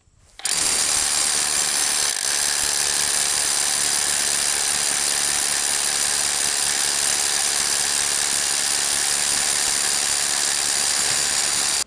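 Ryobi One+ P223 brushless SDS Plus rotary hammer drilling a 3/4-inch masonry bit into limestone, running steadily under load. It starts about half a second in and cuts off suddenly at the end.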